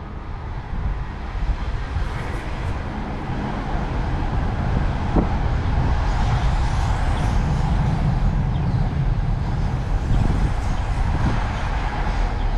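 A train running past on the tracks below, a steady low rumble that swells a few seconds in, with a few sharp rail clicks near the end.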